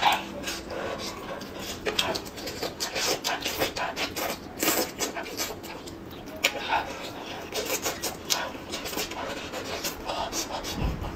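Close-up eating sounds: a whole cooked chicken torn apart by hand, with wet chewing, lip smacking and breathing, as a run of irregular small crackles and clicks.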